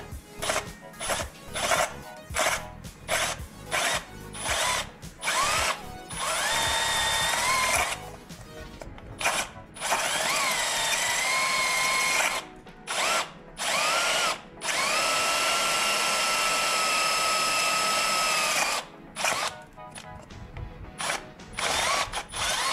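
Cordless drill with a step bit drilling out a hole for a switch. The trigger is pulsed in quick short bursts at first, then held for three longer runs of a few seconds each, the motor whine rising as it spins up and then holding steady.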